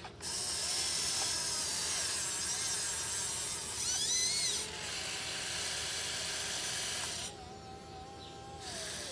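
Small electric gear motors of an RC excavator whining as it digs, with no sound effects playing. The pitch rises and falls with each short movement, and a higher, louder whine comes about four seconds in.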